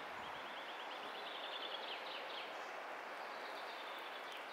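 Steady rushing outdoor noise with a small songbird singing a fast trill of repeated high notes during the first two seconds or so, then a fainter call near the end.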